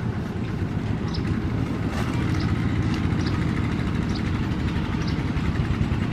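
Kubota RT140 walking tractor's single-cylinder diesel engine running steadily with a dense low chug. A short high chirp repeats roughly once a second over it.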